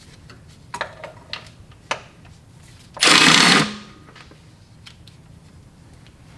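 A few light metal clicks as a tool is fitted onto a valve-cover bolt. About three seconds in, a power ratchet runs in one loud, short burst of under a second, spinning the bolt loose.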